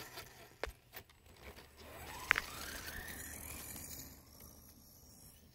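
Electric RC truggy (JLB Cheetah 4x4 on a 3S LiPo) pulling away across grass: its motor whine rises in pitch as it speeds up, over tyre noise, and fades as the truck moves off. There are a couple of light clicks near the start and a brief sharp chirp about two seconds in.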